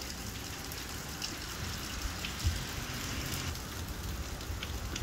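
Steady rain falling, with scattered drips ticking close by over a low rumble and a brief thump about two and a half seconds in.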